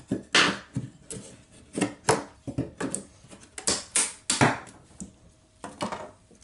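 Flat steel pry bar scraping and striking against a plywood subfloor in about a dozen short, quick strokes at an uneven pace, with a pause of about a second before the last couple.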